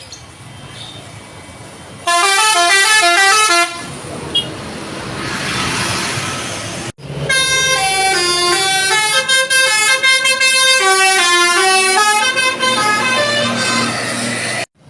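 Basuri musical bus horns playing quick stepping telolet melodies: a short run about two seconds in, then a longer tune of about seven seconds starting near the middle. Traffic noise fills the gap between them.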